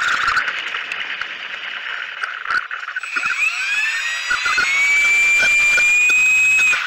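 Motors of a radio-controlled OV-10A Bronco model running while it rolls on the runway: a rough whir at first, then about three seconds in a whine rises in pitch as the motors speed up and holds steady, dropping off right at the end.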